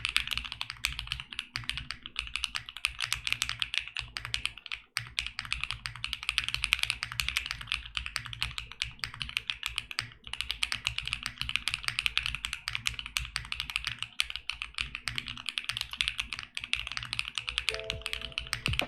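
Fast, continuous typing on a 65% mechanical keyboard with BSUN Dream linear switches (polycarbonate top housing, nylon bottom housing, POM stem) mounted in a polycarbonate plate with no case foam: a dense stream of keystrokes and bottom-outs. Near the end a few music notes come in under the typing.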